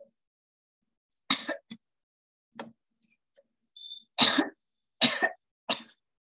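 A person coughing repeatedly, about six short coughs in a row, the loudest just past the middle.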